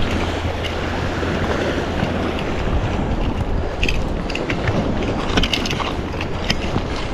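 Wind buffeting the microphone by the sea, with a steady low drone that drops away about two and a half seconds in. Scattered light clicks and taps follow in the second half.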